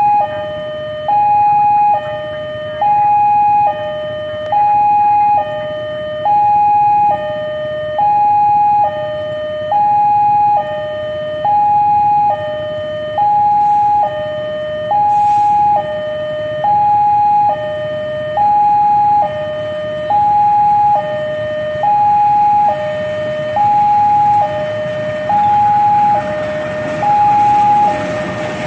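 Railway level-crossing warning alarm sounding a steady two-tone high-low signal, each tone held a little under a second, warning that a train is approaching. Near the end a diesel locomotive's engine rumble rises underneath as the train comes up to the crossing.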